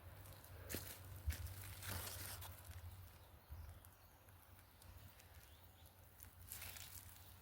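Faint rustling and crinkling with a few soft knocks and steps, over a low steady rumble.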